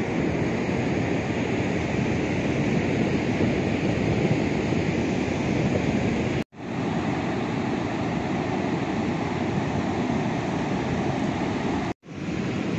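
Steady wash of ocean surf breaking on a beach, mixed with wind buffeting the microphone. The sound cuts out for an instant twice, about six and a half seconds in and near the end.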